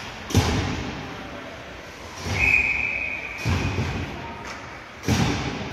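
Four dull, echoing thuds in an ice hockey arena, spaced one to two seconds apart. A steady high tone lasts about a second, a little after the second thud.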